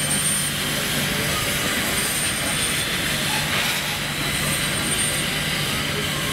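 Locomotives standing at a station platform: a steady low engine hum under a continuous broad hiss, with a faint high tone that comes back every couple of seconds.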